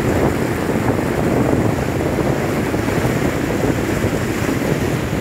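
Surf breaking on a beach, heard as a steady, loud rush mixed with wind buffeting the phone's microphone.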